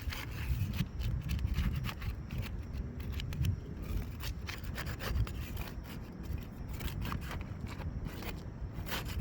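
A hand pry tool scraping and rasping under asphalt roof shingles in repeated irregular strokes, breaking the shingles' seal to loosen them before the nails are pulled.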